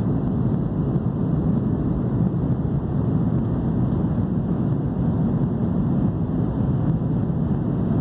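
Jet airliner cabin noise in flight: a steady, low, even rush of engines and airflow heard from inside the cabin.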